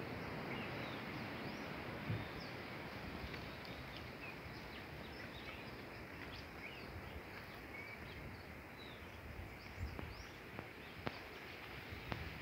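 Small birds chirping in the bush: many short, quick calls that slide up or down in pitch, over a steady outdoor hiss, with a couple of brief soft knocks.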